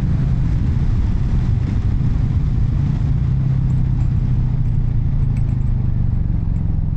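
Royal Enfield Classic 350's single-cylinder engine running at a steady pace under way, heard through a microphone inside the rider's helmet.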